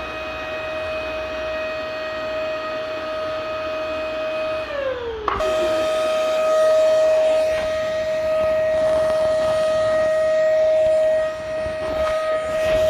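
Vacuum cleaner motor running with a steady high whine. About five seconds in its pitch slides down as if winding down, then it cuts back suddenly to full speed and runs on steadily, a little louder.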